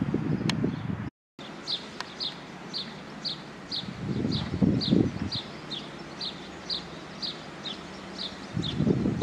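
A small bird repeating one short, high chirp over and over, about two or three times a second, with gusts of wind rumbling on the microphone around the middle and near the end.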